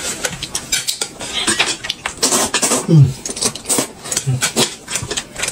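Clicking and clinking of a meal at the table: macadamia nuts being cracked open and their shells clinking on a stainless steel pot lid, with chopsticks against a plate. A short low falling 'mm' from a person is the loudest sound, about three seconds in.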